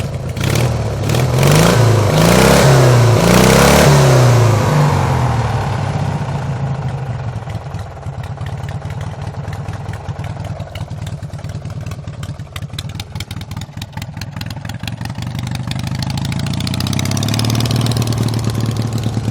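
16 HP Briggs & Stratton opposed-twin engine on a racing lawn mower, running through dual exhaust. It is revved up and down several times in the first few seconds, then settles to a steady run and picks up a little again near the end.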